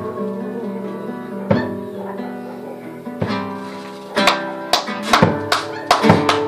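Acoustic guitar playing folk music: chords are left ringing at first, then about four seconds in comes a run of sharp, accented strums, a few a second.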